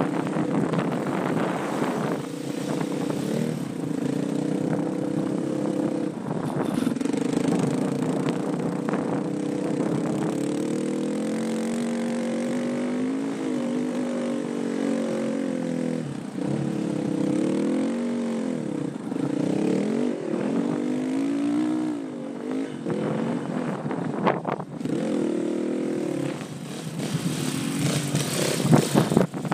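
Off-road dirt bike engines running and revving up and down while riding through sand dunes, the pitch rising and falling with the throttle and getting louder near the end.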